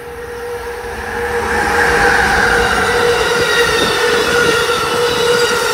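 An Amtrak passenger train hauled by an ACS-64 electric locomotive approaches and passes at speed. The sound builds over the first two seconds, then holds as a steady loud rush and rumble of wheels on rail. A steady whine runs under it, and a higher tone drops in pitch as the locomotive goes by.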